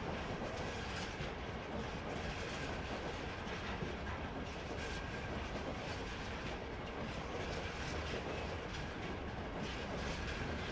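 Freight train of covered bogie hopper wagons rolling past at steady speed: a continuous rumble of wheels on rail with an irregular clickety-clack over the rail joints and points, and a faint steady high tone above it.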